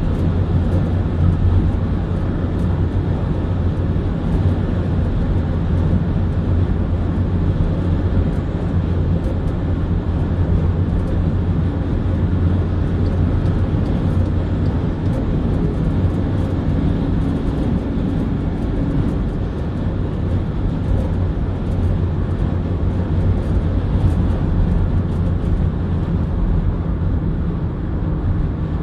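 Steady road noise inside a car cruising at motorway speed: tyre and engine noise with a constant low hum.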